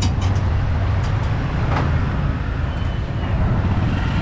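Steady low engine rumble of street traffic, with a few light clicks and knocks near the start and once around the middle.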